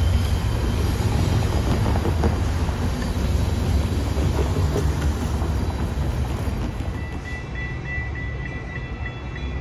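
Metra commuter train passing, a steady rumble of wheels on rails that eases a little near the end, when a thin steady high tone comes in.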